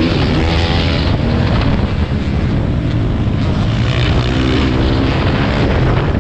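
Motocross bike engine running hard, its pitch rising and falling as the throttle is worked.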